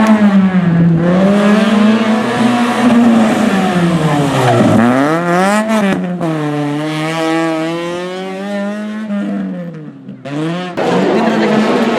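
Rally car engine revving hard, its pitch rising and falling as it accelerates, brakes and changes gear, with a sharp drop and climb about five seconds in. The engine falls away and breaks off briefly near ten seconds, then a rougher, noisier engine sound takes over.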